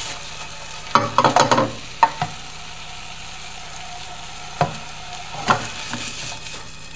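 Ground lion-meat burger patties sizzling in a nonstick skillet, with a spatula scraping and knocking against the pan in short bursts several times as the patties are turned and moved.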